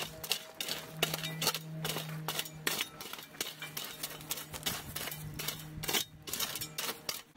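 Steel shovel blade scraping and digging through loose soil and gravel, a rapid, irregular run of scrapes and clinks.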